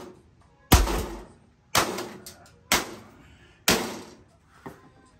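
Four heavy blows about a second apart, each a sharp crash that dies away quickly: a dismantled microwave oven being smashed, its metal and plastic parts struck and breaking.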